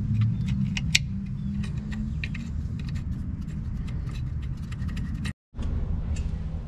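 Light metallic clicks and clinks of a wrench and brake hose fittings being worked by hand, over a steady low rumble. The sound cuts out for a moment about five seconds in.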